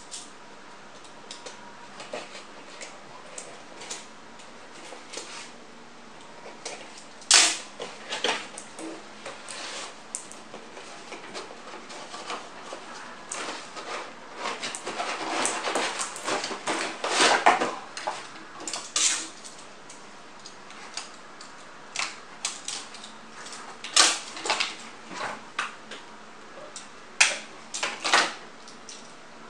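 A cardboard toy box being opened and unpacked by hand: scattered rustles, scrapes and sharp clicks of cardboard flaps and an inner cardboard tray, busiest about halfway through.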